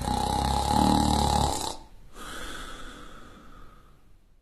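A person snoring: one loud snore for about two seconds, then a quieter, breathy out-breath that fades away.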